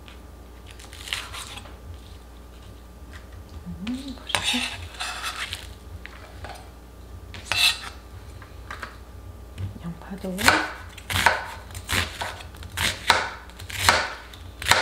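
Chef's knife cutting on a cutting board: a few scattered cuts through green onions, then from about ten seconds in a steady run of knife strokes, roughly every half second, as an onion is sliced.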